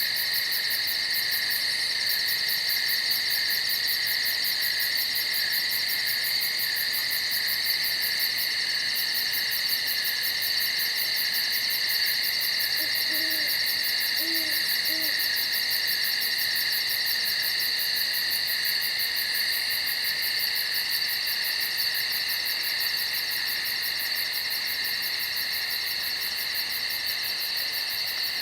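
A steady, high-pitched insect chorus with a fast pulsing trill on top, running without a break. About halfway through, an owl hoots faintly three times.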